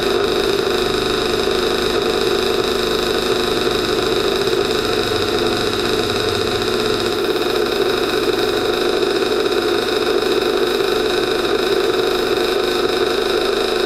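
KTM 50's small two-stroke single-cylinder engine idling steadily, with no revving. The air mixture screw seems to make no difference, which the owner takes for an air leak.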